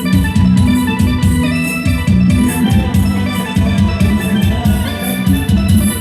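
Loud amplified procession music from a Thai sound truck: an electronic organ melody over a heavy bass line and a steady drum beat.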